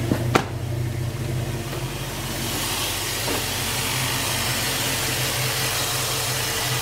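Jeep Grand Cherokee WJ's 4.7-litre V8 idling steadily, with no whine from the power steering after the high-pressure hose was replaced. A sharp click comes about half a second in, and a hiss grows from about two and a half seconds on.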